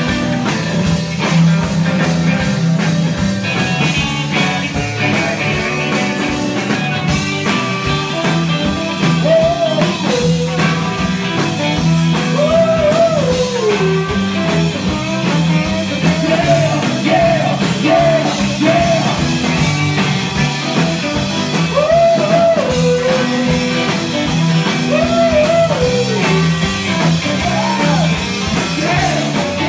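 Live rock and roll band playing: electric guitar, electric bass and drums, with a saxophone playing a bending melodic line over them.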